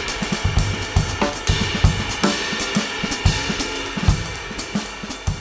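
Music with a full drum kit, with kick drum, snare, hi-hat and cymbals on a steady beat, starting to fade out near the end.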